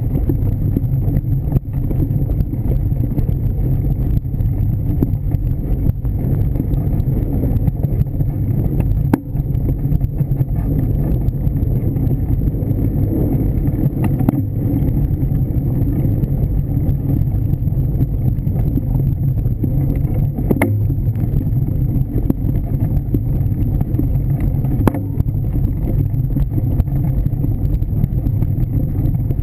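Mountain bike rolling fast over a leaf-covered dirt trail, heard through a handlebar-mounted camera: a steady, loud low rumble of tyre and frame vibration mixed with wind on the microphone, broken by a few sharp knocks.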